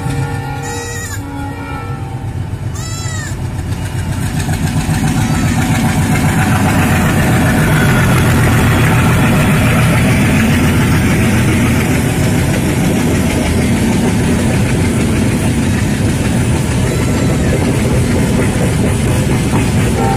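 Diesel-hauled express train of LHB coaches running through at speed. Steady horn-like tones sound in the first couple of seconds, then from about four seconds a loud, steady rush of the locomotive and coaches passing close on the rails.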